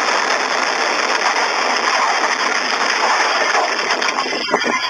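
Aftermath of a vehicle explosion picked up by a door surveillance camera's microphone and heard through a phone's speaker: a loud, steady rushing noise straight after the blast, with a few knocks near the end.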